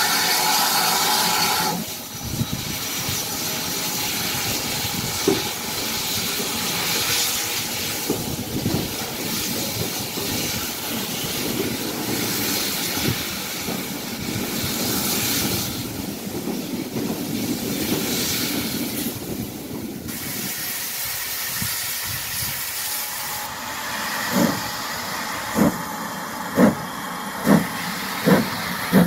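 Steam locomotive hissing steam, then a steam train's rumble with irregular clatter from the track. Near the end a GWR-green steam tank locomotive pulls away, its exhaust chuffs coming about once a second and quickening.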